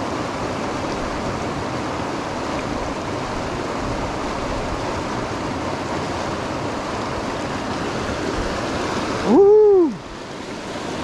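River water rushing over and around boulders: a steady wash of flowing water. About nine seconds in, a loud short pitched sound rises and falls in under a second, and then the water noise drops away suddenly.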